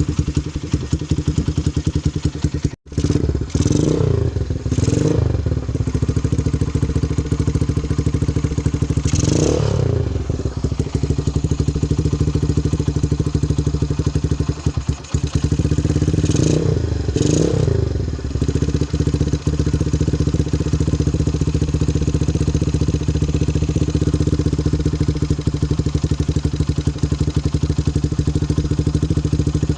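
Single-cylinder four-stroke Honda Megapro motorcycle engine idling through a round CKC aftermarket exhaust with a boom header pipe. The throttle is blipped in about five short revs, two close together a few seconds in, one near ten seconds and a pair a little after the middle. The sound breaks off for a moment just before the first revs.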